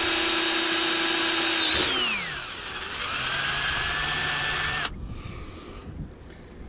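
Cordless drill driving a self-tapping screw into a mast's external sail track: the motor whines steadily at full speed, drops in pitch and winds down about two seconds in, then runs again more slowly for about two seconds and cuts off suddenly. The screw is going in only with difficulty.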